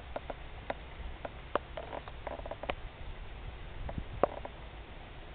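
Low steady rumble of storm wind on the microphone, with a dozen or so sharp ticks scattered irregularly through it, a few carrying brief squeaky tones; the loudest tick comes a little after four seconds in.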